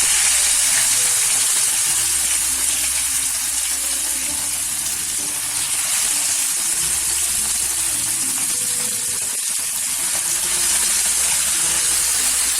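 Masala-marinated fish pieces sizzling loudly in hot sunflower oil with curry leaves in a frying pan. The hiss starts suddenly as the fish goes into the oil and then holds steady.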